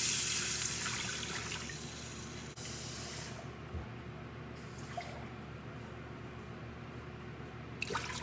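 Water being poured into the hot inner pot of an Instant Pot on sauté, where pork belly has just cooked. A loud rushing hiss lasts about two and a half seconds, a second short pour follows, then a quieter steady hiss.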